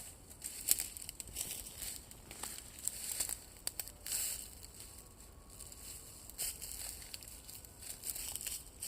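Irregular crackling and rustling, in short uneven bursts.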